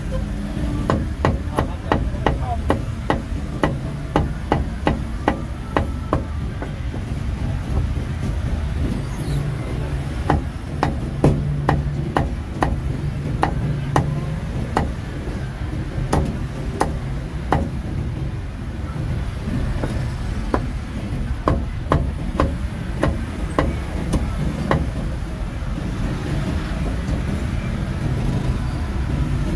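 Heavy meat cleaver chopping roast duck on a thick wooden chopping block: runs of sharp knocks, about three a second, broken by short pauses.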